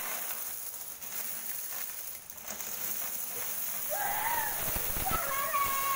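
A large mass of coins pouring out of a plastic bucket onto a heap of coins on a tiled floor, a continuous clinking clatter. A voice calls out briefly about four seconds in and again near the end.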